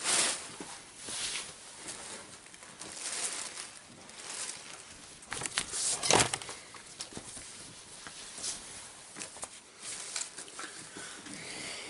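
Rustling and flapping of a hockey jersey's fabric as it is pulled on, in irregular bursts.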